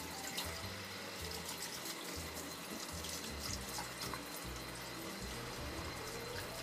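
Kitchen faucet running steadily into a stainless steel sink, the stream splashing over hands and a cloth coffee filter being rinsed under it.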